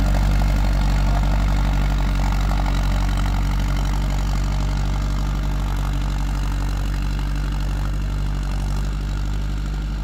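Massey Ferguson 440 4x4 tractor's diesel engine running steadily under load while ploughing, a constant low drone that slowly fades as the tractor pulls away.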